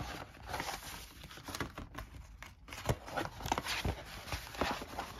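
Cardboard game box being opened and its printed card and paper contents handled: scattered rustling, light scrapes and small taps of card.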